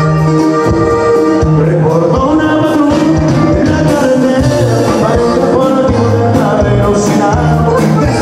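Live norteño band music: button accordion carrying the melody over a tuba bass line and a steady beat.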